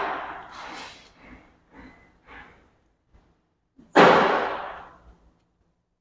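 Cornhole bags thrown at a wooden cornhole board, each landing with a loud thud that echoes around a large hall: one dying away at the start and another about four seconds in, with a few softer knocks between.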